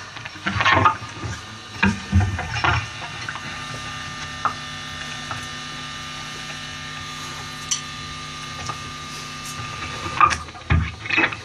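Guitar amplifier humming steadily while nobody plays, with scattered clicks and knocks and a few louder knocks near the start and again near the end.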